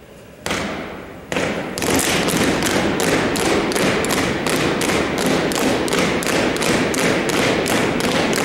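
A drill team stomping in unison on a hardwood gym floor, echoing in the hall: two single stomps about half a second and just over a second in, then a fast, even stomping rhythm of about four a second.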